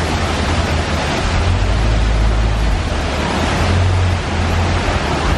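Open-sided safari truck on the move: a steady low engine and road rumble under a loud rushing of wind and tyre noise.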